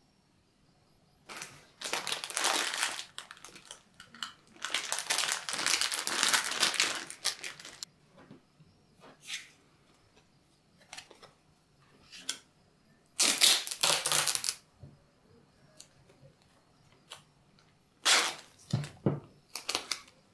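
Paper pattern pieces and Diatex non-slip tape being handled: four crinkling, tearing bursts as tape is pulled and torn from its roll and pressed onto the paper, with small clicks and rustles between.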